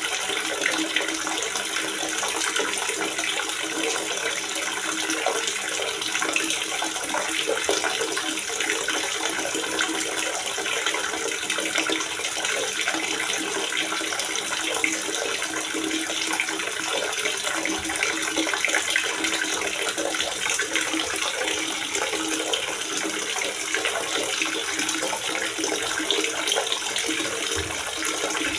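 Water gurgling and splashing steadily into a water reservoir, a continuous bubbling rush.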